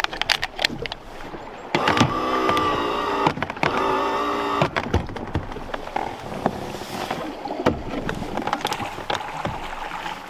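Drift boat being rowed: oars knocking and clunking in the oarlocks, with a drawn-out squeak in two long strokes about two seconds in.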